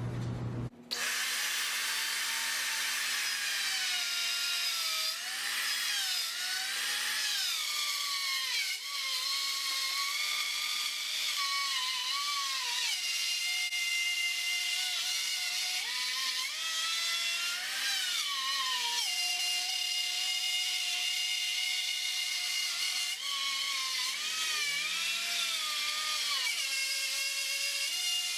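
A router motor switched on about a second in, whining at high speed as its bit plunges into and cuts through wood. Its pitch keeps dipping and recovering as the bit is loaded and eased off while the router is swung around a pivot pin to cut a circle.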